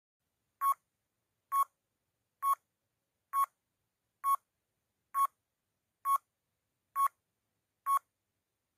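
Quiz countdown timer sound effect: nine short electronic beeps about a second apart, with silence between them.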